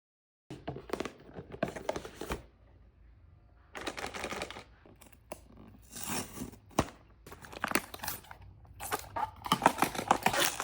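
Blind-box packaging being handled and opened: crinkling and tearing in irregular bursts with sharp clicks, starting about half a second in and busiest near the end.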